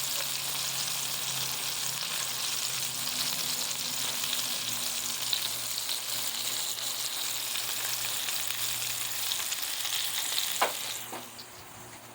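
Blackfin tuna medallions frying in hot bacon grease in a pan: a steady sizzle. About ten and a half seconds in there is a sharp click, and the sizzle then drops much quieter.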